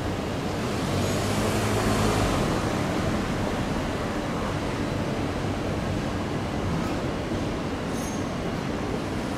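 Steady city street traffic noise, swelling about a second in as a heavy vehicle passes with a low steady hum, then settling back.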